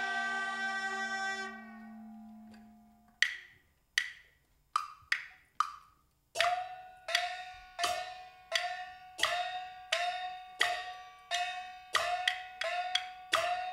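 Traditional percussion accompanying a Taiwanese glove-puppet show: a lingering note dies away, then a few sharp, wooden-sounding knocks. From about six seconds in comes a steady beat of struck strokes, about one and a half a second, each with a short ring, quickening near the end.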